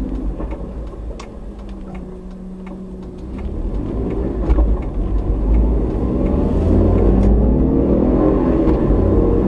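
A car driving, recorded by a dashcam: engine and road rumble, the engine getting louder and speeding up from about a third of the way through as the car accelerates.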